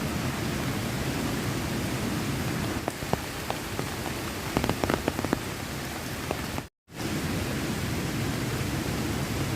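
Heavy rain falling steadily, with a cluster of sharp ticks in the middle. The sound cuts out completely for a moment about two-thirds of the way through.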